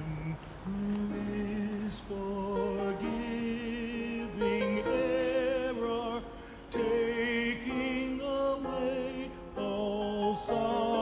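Slow, gentle music with long held notes, several of them wavering in vibrato, changing every second or two.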